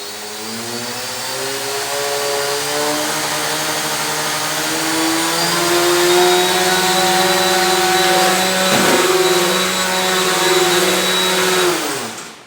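Homemade coaxial RC helicopter's electric motors and two rotors spinning up. The whine rises in pitch over the first few seconds, holds steady at lifting power, then winds down and stops near the end.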